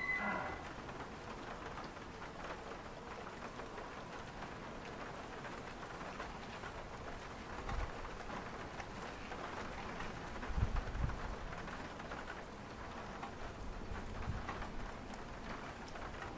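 Steady patter of light rain, an even crackly hiss, with a few low thumps about 8 and 11 seconds in.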